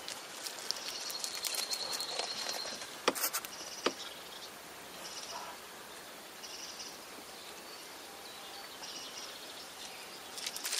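Outdoor garden ambience with small birds singing short, high, scattered phrases, and a few sharp clicks about three seconds in.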